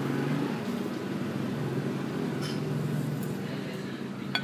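A steady low engine hum over street noise, with a few light clicks, the sharpest near the end.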